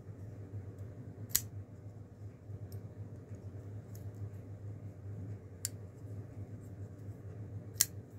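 Liner-lock folding knife being worked by hand: three sharp metallic clicks of the blade and lock, about a second and a half in, again about four seconds later, and the loudest near the end as the blade snaps open, with a few fainter ticks between.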